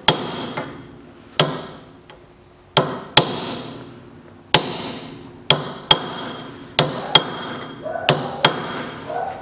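Hammer striking a steel punch held to the rear hub nut of a VAZ 2110, staking the nut's collar to lock it on the axle stub. About eleven sharp metallic blows, uneven in spacing and some in quick pairs, each ringing briefly.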